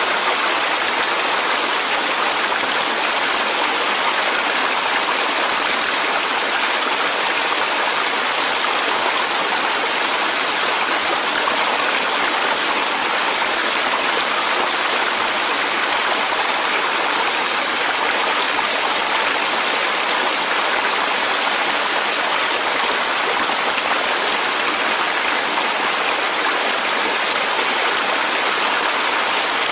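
Mountain stream water running over rocks in a valley: a steady, even rushing.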